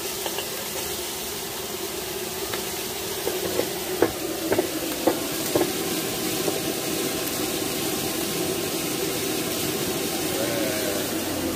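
Chopped chicken skin frying in oil in a wok, sizzling steadily, with several sharp clinks of the metal spatula against the wok in the first half.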